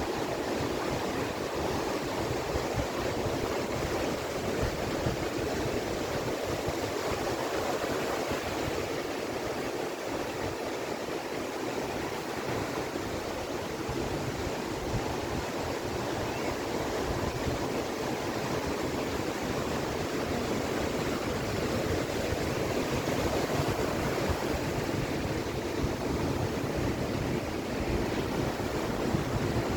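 Ocean surf washing onto a beach: a continuous rushing wash that swells and eases gently, with no single breaker standing out.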